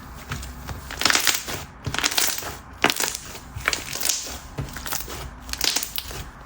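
Thick, glossy chewy-texture slime being squeezed and pressed by hand, trapped air bubbles popping loudly in a quick run of sharp pops and crackles from about a second in.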